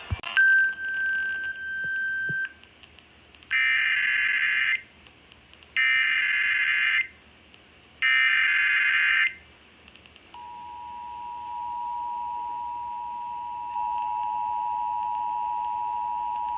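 Emergency Alert System header: after a click and a steady two-second tone, three screechy bursts of SAME digital data, each a little over a second long, sound about a second apart. The two-tone EAS attention signal follows and holds steady, growing louder partway through. Together they announce the start of a new alert broadcast, here a tornado warning.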